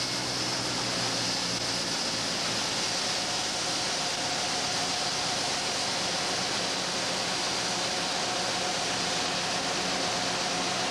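John Deere combines running steadily while one unloads soybeans through its unloading auger into a grain truck: a constant mechanical drone with a steady engine hum underneath. A steady whine joins about three seconds in.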